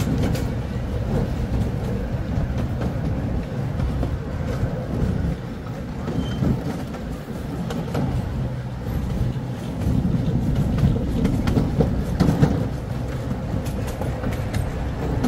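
Miniature ride-on railway cars rolling along the track: a steady low rumble from the wheels on the rails, with occasional sharp clicks, one cluster about twelve seconds in.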